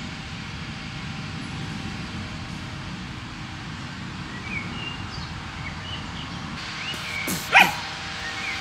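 Outdoor ambience: a steady low rumble with small bird chirps over it, and one short, loud call near the end.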